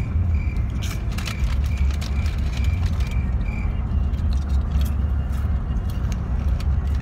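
Steady low rumble inside a car cabin, with soft crunches of chewing puffed corn snacks about a second in. A faint high beep repeats about three times a second and stops about three and a half seconds in.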